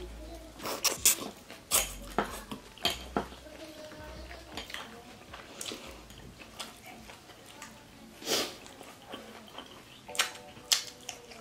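Bamboo barbecue skewers and a spoon clicking and clattering against bowls, a plastic container and the wooden table while grilled isaw is eaten off the sticks: sharp separate clicks, several in the first three seconds and a few more later. Music starts near the end.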